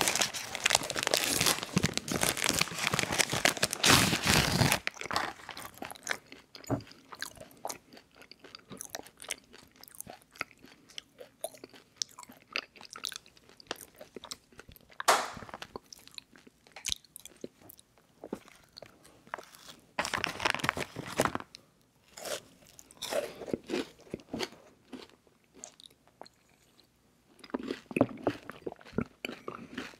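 Plastic wrapper of a S'mores marshmallow cereal treat bar crinkling loudly for the first few seconds as it is opened. Then close-miked chewing of the bar, soft moist crunches with a few louder bites.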